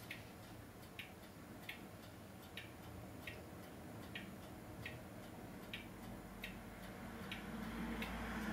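Steady mechanical ticking, about five ticks every four seconds, over a faint low hum that grows louder near the end.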